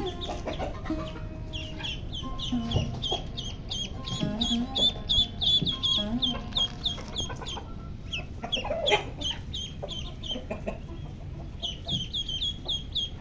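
Ducklings peeping: a continuous run of short, high, falling peeps, about three or four a second, thinning briefly midway and picking up again near the end. A few lower, shorter calls from other poultry come in underneath.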